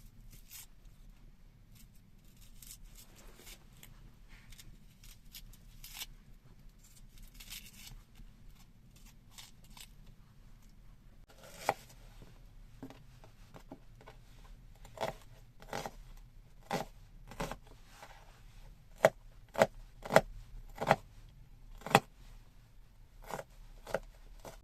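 Soft rustling and small handling clicks, then a run of sharp knocks about one a second, loudest in the second half.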